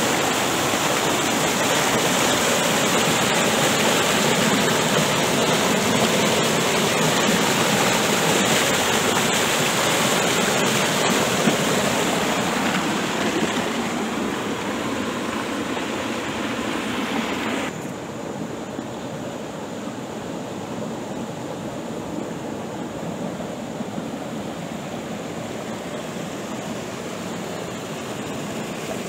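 Fast river water rushing over and around boulders, a steady rush. About two-thirds of the way through it drops suddenly to a quieter, duller rush.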